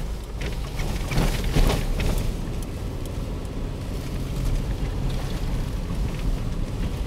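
Nissan Xterra driving through deep snow, heard from inside the cabin: a steady low rumble of engine and tyres, with a hissing, crunching rush of snow under the vehicle that is loudest from about one to two seconds in.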